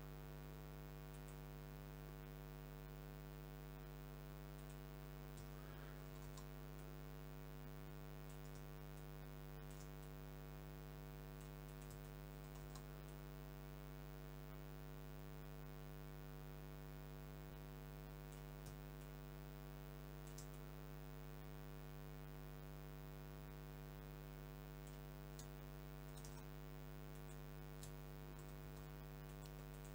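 Low, steady electrical mains hum with several evenly spaced hum tones, and a few faint scattered clicks from a computer mouse.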